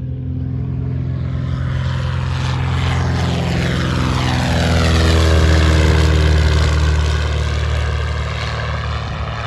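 Propeller airplane passing by. The engine note swells to its loudest a little past halfway, its pitch drops as it goes past, and then it eases off.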